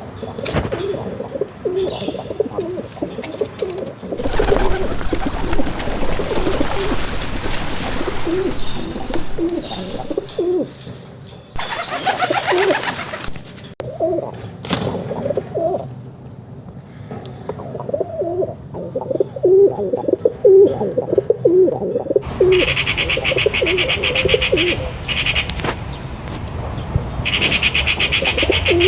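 Pigeons cooing, low repeated throaty coos overlapping one another throughout. Stretches of loud hiss lie over them, and a steady high buzzing joins in near the end.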